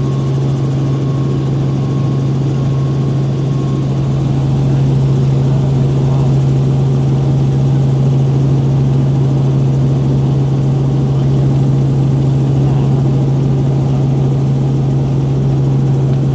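Helicopter in flight heard from inside the cabin: a steady drone with a strong low hum, getting a little louder about four seconds in.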